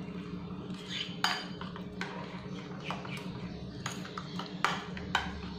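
Steel spoon stirring thick rice-flour batter in a glass bowl, clinking against the bowl's side about six times, over a steady low hum.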